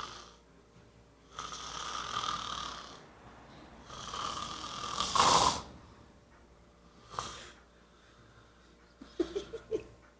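Snoring: two long, noisy snoring breaths about three seconds apart, the second swelling louder near its end, followed by a short faint sound and a few small clicks near the end.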